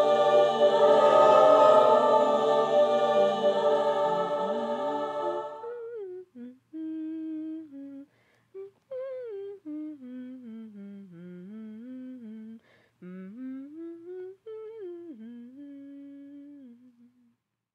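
Background music: a loud sustained chord that breaks off about five seconds in, then a soft lone voice humming a slow melody that slides up and down in pitch and stops shortly before the end.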